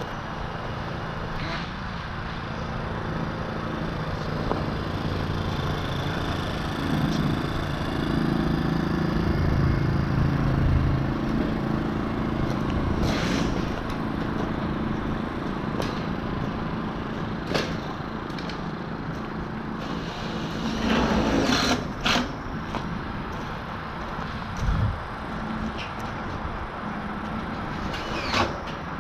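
An engine running steadily on a construction site, with scattered knocks and clatters of building work.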